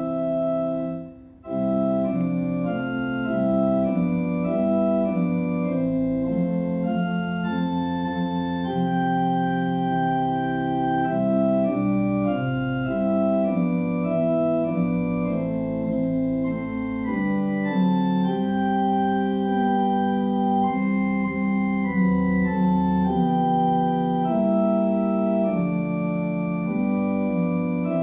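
Slow instrumental organ music, long-held chords changing every second or two, with a brief break about a second in.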